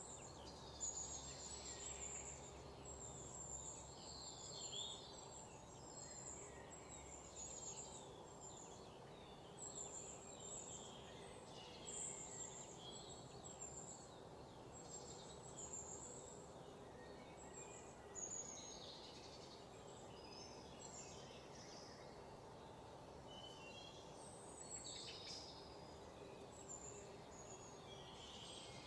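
Faint birdsong: many small birds chirping in short, high calls over a low steady hum.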